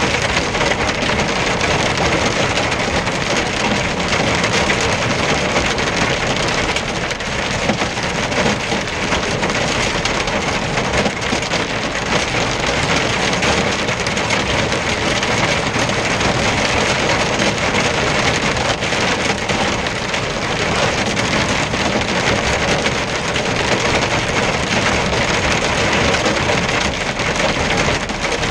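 Hail and rain pelting a truck's windscreen and cab roof, heard from inside the cab as a dense, steady patter of many small impacts.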